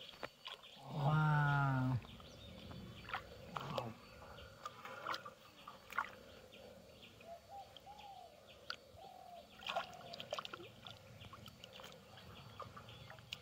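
Muddy pond water splashing and sloshing in scattered small bursts as a fish thrashes inside a bamboo polo basket trap and hands grope for it; a few faint bird chirps in the background. About a second in, a loud low-pitched call lasting about a second stands out above the rest.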